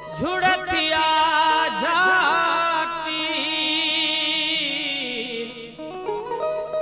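Sindhi wai: a man singing a winding, ornamented melody with wavering held notes over sustained harmonium chords.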